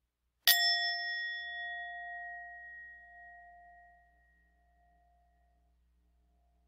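A singing bell struck once, ringing out with a few clear tones and slowly fading away over about four seconds, the low tone lingering longest. It marks the end of the meditation.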